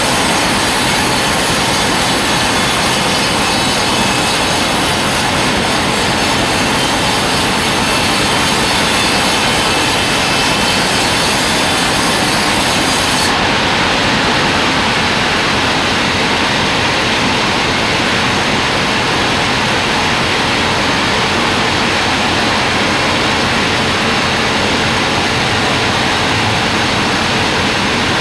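Log band sawmill (gergaji selendang) running loud and steady as it saws timber. The high hiss drops off abruptly about halfway through while the main noise carries on unchanged.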